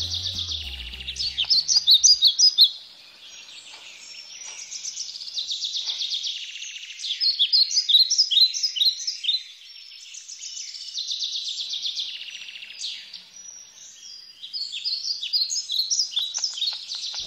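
Bird-like singing: high chirps and rapid trills in phrases that repeat every few seconds, with three louder bouts of quick chirps among quieter, more even warbling.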